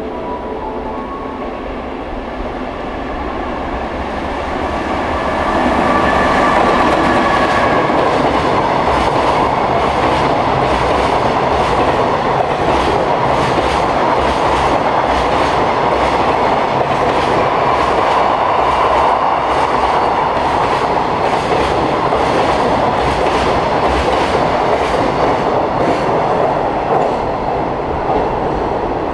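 JR Freight container train passing at speed. At first there is a faint whine over a rumble as it approaches. About five seconds in it grows loud, and then comes a long, steady run of wheels clattering over the rail joints as the container wagons go by, easing near the end.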